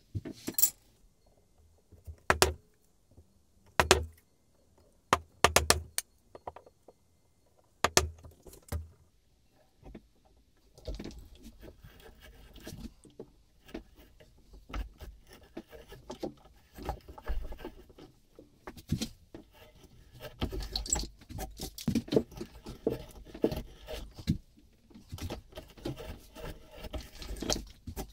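Several sharp knocks in the first few seconds, then an auger bit boring into a block of beech wood: an irregular crunching and scraping as the bit cuts chips from the wood.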